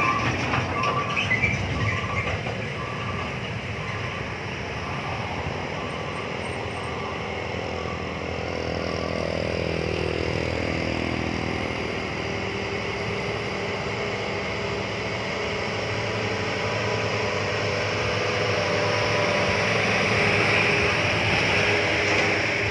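Heavy truck diesel engines labouring slowly up a grade, a steady low drone whose pitch dips and climbs again about ten seconds in. A short beep repeats about once a second for the first eight seconds or so.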